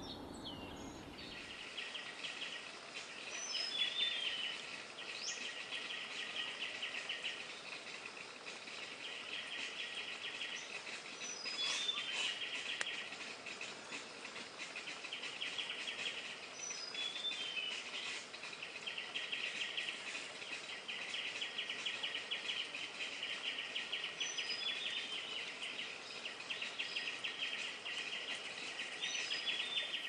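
Insects trilling in a dense, finely pulsed chorus that runs in long stretches with brief breaks, with a few short, high bird chirps scattered through it.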